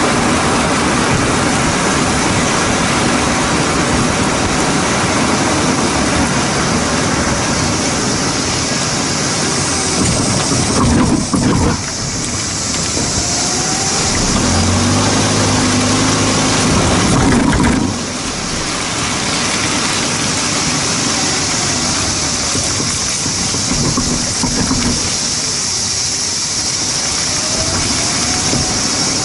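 Tyre and road noise from a car's rear wheel rolling over pavement, picked up by a camera mounted under the car beside the rear suspension. Two louder knocks come about eleven and eighteen seconds in, and a low hum sounds for a few seconds before the second one.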